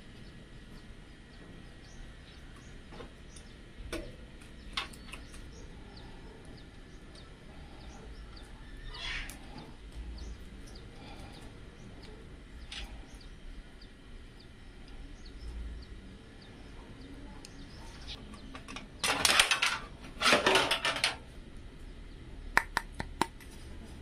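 Handling noise from working on a Montech XR PC case and its cables: scattered light clicks and rustles, then two louder clattering bursts of about a second each near the end, followed by a few sharp clicks.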